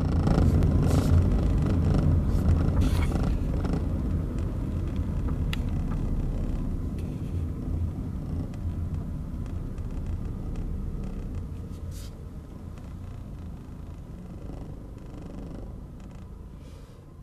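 Car driving slowly along a narrow road: a steady low rumble of engine and tyres that fades gradually as the car slows, with a few faint clicks.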